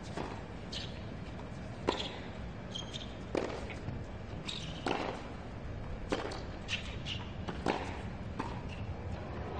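Tennis rally on a hard court: racket strikes on the ball about every one and a half seconds, with a steady low crowd and stadium hum underneath.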